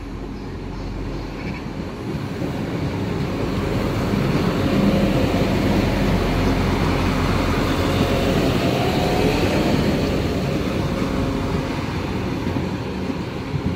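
Class 175 diesel multiple unit running along the platform past the camera: engine rumble and wheels on the rails, swelling as the coaches go by and easing off near the end.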